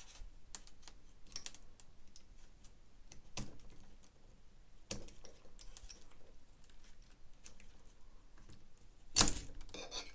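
Small plastic clicks and wire rustling as crimp terminals and wires are worked out of a plastic connector block on a cordless chainsaw's controller, with one sharp, louder click about nine seconds in.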